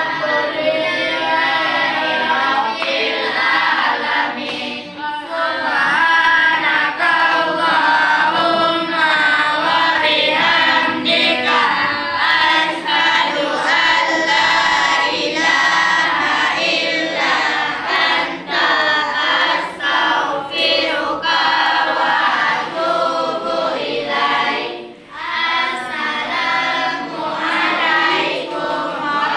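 Many voices singing together in chorus, a song that carries on without a break.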